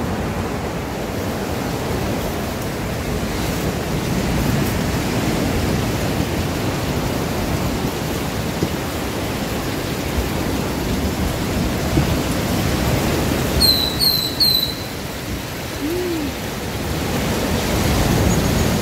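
Steady rush of wind and ocean surf breaking on the beach. About fourteen seconds in, a bird gives three short, high chirps.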